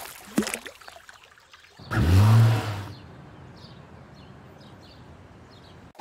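Cartoon vehicle engine sound effect: a short rev about two seconds in, rising and then settling, followed by faint, scattered bird chirps over quiet ambience.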